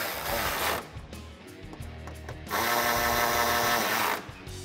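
Cordless electric ratchet with a 10 mm socket running down bolts, its motor whirring in two runs: one that stops under a second in, and another of nearly two seconds starting about halfway through.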